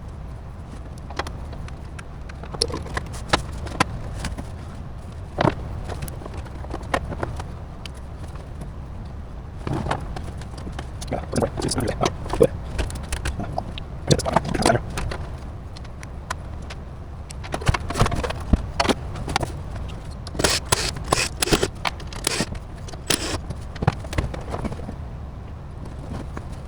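Irregular clicks, knocks and scrapes of hardware being handled, over a steady low hum.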